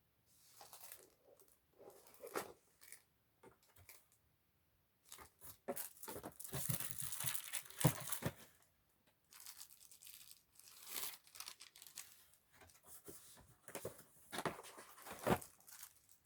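Packaging being handled: fairly faint, irregular crinkling and rustling in uneven bursts, densest around the middle with a sharper crackle about eight seconds in.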